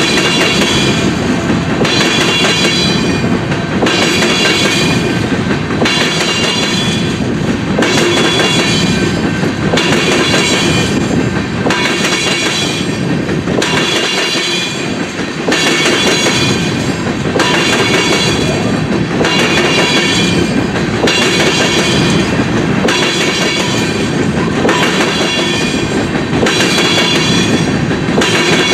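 Freight train of covered hopper cars rolling past close by: steady rumble of steel wheels on rail, with a regular clack about every second and a half as the wheel sets pass.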